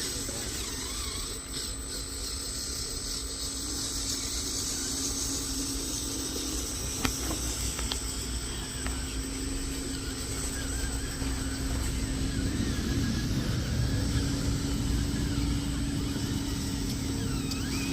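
Electric motors and gears of remote-controlled toy construction vehicles running with a steady whine, with a single click about seven seconds in.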